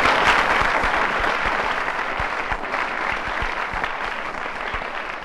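A live audience applauding, a dense patter of many hands clapping, loudest at the start and slowly tapering off.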